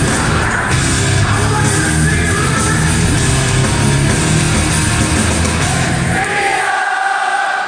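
Live metalcore band playing loud, heavy music with distorted guitars, bass and drums. About six seconds in the low end stops and the crowd's voices carry on, cheering and singing.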